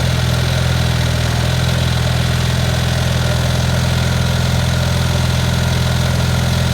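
Carbureted tractor engine idling steadily.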